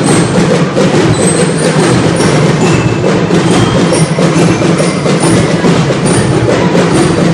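Drum and lyre band playing: snare and bass drums keep up a dense, steady beat while bell lyres ring out short high metallic notes over it. Loud throughout.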